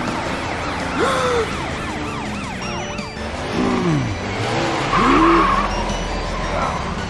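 Cartoon car-chase sound effects: engine revs swooping up and down and a siren wailing in repeated rises and falls, with a tyre squeal about five seconds in, over background music.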